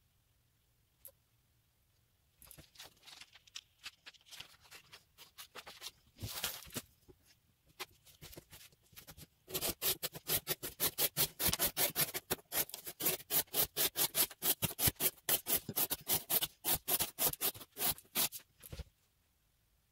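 Knife blade (Spyderco Manix 2 Lightweight in CPM REX45 steel) slicing through cardboard again and again in an edge-retention cut test. The cuts come slowly and unevenly at first, then about halfway in settle into a fast, steady run of roughly four slices a second that stops abruptly near the end.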